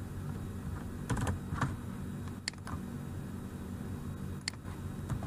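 A few scattered computer keyboard keystrokes, irregularly spaced clicks a second or more apart.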